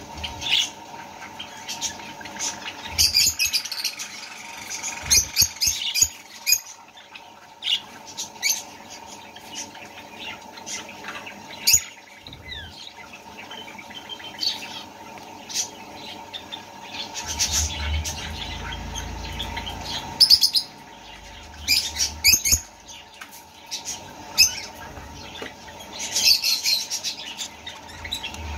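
Budgerigars chirping and squawking in short, scattered bursts of high-pitched calls, over a steady faint hum.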